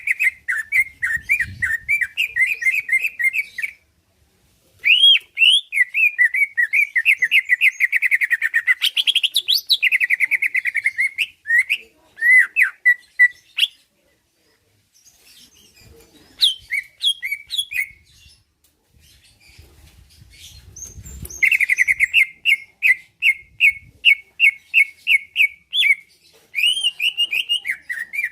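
A cucak ijo (greater green leafbird) singing loudly in long runs of fast, repeated trills and chattering, swooping notes, with short pauses about four and fourteen seconds in. This is the 'gacor' full, continuous song that hobbyists prize.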